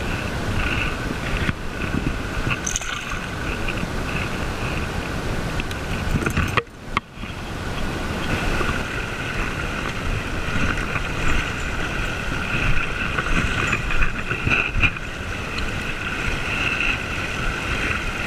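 Shallow river water running steadily over stones close to the microphone, with wind noise on the microphone; the sound dips out briefly about seven seconds in.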